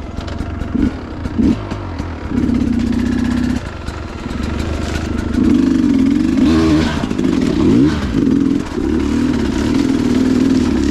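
Two-stroke Sherco enduro dirt bike engine revving under load off-road, holding a steady pitch in stretches and rising and falling in pitch around the middle, with short knocks and clatter from the bike.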